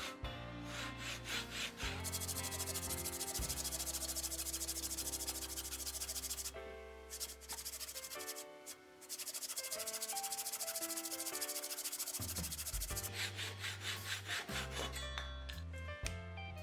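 Wood being sanded: a dense scraping hiss in two long stretches with a short break between them, and quicker rubbing strokes before and after. Background music with a bass line runs underneath.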